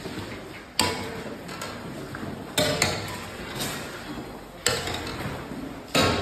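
Metal cooking utensils clanking against a large kadhai, about five sharp clanks a second or so apart, over a steady background hiss.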